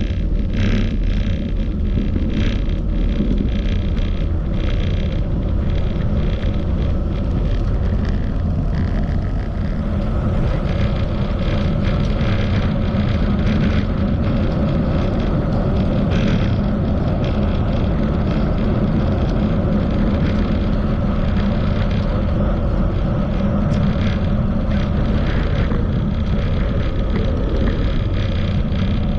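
Steady wind rush over the microphone and tyre and road noise from a moving bicycle, with light clicks and rattles from the bike.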